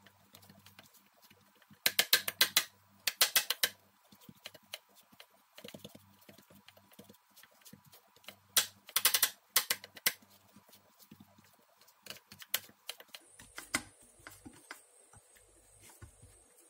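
Plastic rice paddle pressing and scraping sticky cooked rice against a plate, in quick bursts of clicky taps and scrapes. The loudest clusters come about two and three seconds in and again around nine seconds, with lighter ticks between.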